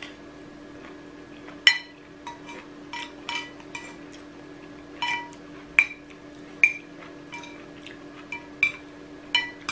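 Metal spoon and fork clinking and scraping against a ceramic plate while eating: a dozen or so sharp, ringing clinks at irregular intervals, over a steady low hum.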